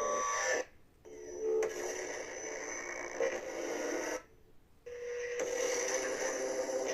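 Xenopixel lightsaber's sound board playing soundfont effects through its small built-in speaker, with a steady hum and swing sounds. It cuts out twice, briefly, about half a second in and about four seconds in.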